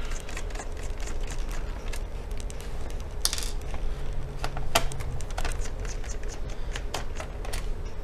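Small screwdriver backing screws out of a laptop's plastic bottom cover: scattered light clicks and scrapes of the tip in the screw heads and the hands on the case, with a few sharper clicks, over a steady low hum.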